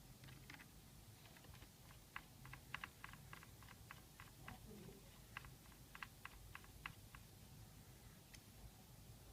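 Faint typing on a laptop keyboard: a run of light, irregular key clicks starting about two seconds in and stopping about five seconds later.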